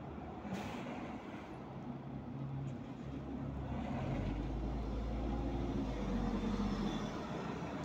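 City bus pulling away from the stop: a brief hiss about half a second in, then its drive noise builds into a low, rising drone as it moves off.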